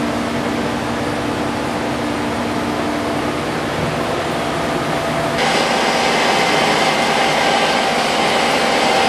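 Steady mechanical hum of running machinery with a few held tones. About five seconds in it switches abruptly to a louder, higher-pitched whir.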